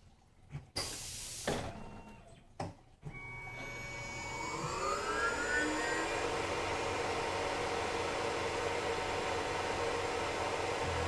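Tormach PCNC 1100 mill changing tools, with a few short knocks from the automatic tool changer in the first few seconds. Then the spindle spins up with a rising whine and runs steadily while the drill works the part, with flood coolant spraying.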